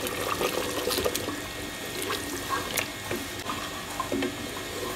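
Wooden spatula stirring yogurt into meat gravy in an aluminium pot: wet sloshing and squelching, with scattered light knocks of the spatula against the pot.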